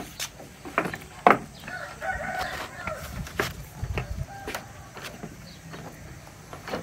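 Footsteps on wooden stairs and planks, a string of separate knocks with one sharper knock about a second in, as a person climbs a wooden staircase. A rooster crows in the background about two seconds in.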